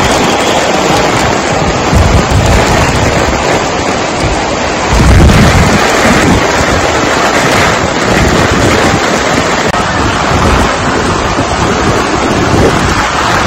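Heavy rain pouring and splashing onto waterlogged stone paving, a loud steady hiss, with a deeper low rumble swelling up about two seconds in and again, louder, about five seconds in.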